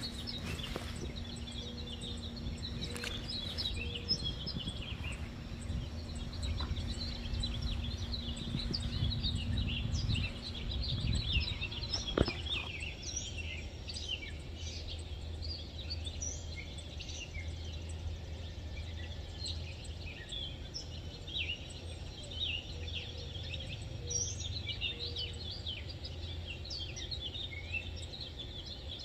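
Many small birds chirping and calling, with short high notes throughout, over a low steady rumble. There is one sharp click about twelve seconds in.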